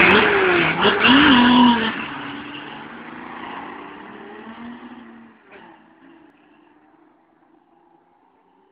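Stock car engines racing past close by, loud for the first two seconds with their pitch rising and falling as they rev, then fading steadily as the cars pull away around the track.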